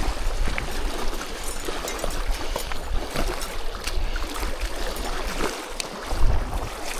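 Small waves lapping and trickling at the water's edge, with many small irregular splashes, and wind buffeting the microphone, which gusts up about six seconds in.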